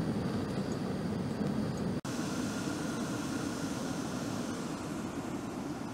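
Backpacking gas canister stove burning steadily under a mess tin of water, a constant roar of the burner flame, with a brief break about two seconds in.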